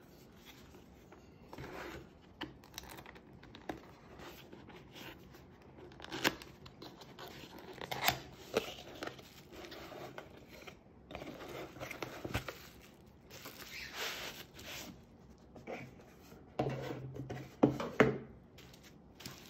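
Cardboard product box being handled and opened: paperboard flaps and sides scraping, clicking and rustling under the hands, then a mesh drawstring bag with bubble wrap inside being pulled out and handled. A few louder sharp knocks come near the end.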